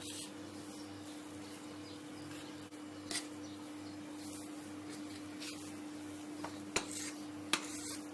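A kitchen utensil scraping and clinking against a bowl a few times while the chocolate mousse layer is spread, over a steady low hum.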